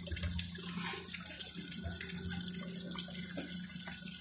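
Water running steadily from a hose into a basin while a puppy is bathed.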